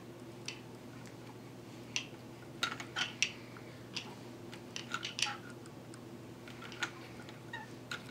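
Scattered small clicks and ticks, about a dozen at irregular intervals and most of them in the middle few seconds, as a baby lies on a mat and moves, over a faint steady hum.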